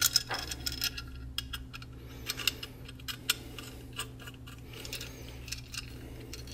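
Scattered small clicks and taps from hands handling metal air fittings and a small air regulator as Teflon tape is wrapped on and a fitting is threaded in. A low steady hum runs underneath.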